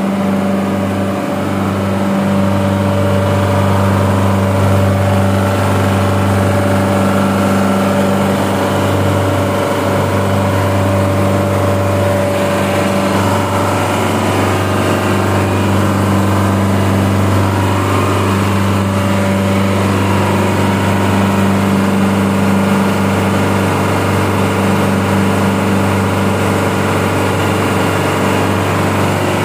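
Reciprocating compressor of a chiller running steadily: a loud, even machine hum with no change in pace.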